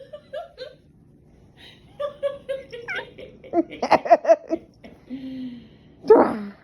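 A person laughing in quick bursts, with short wordless vocal sounds around it and a loud falling vocal sound near the end.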